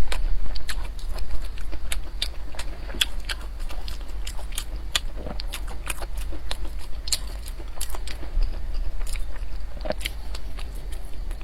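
Close-miked chewing of dense nut bread, with many small, sharp, irregular crunches and mouth clicks, several a second. A steady low hum runs underneath.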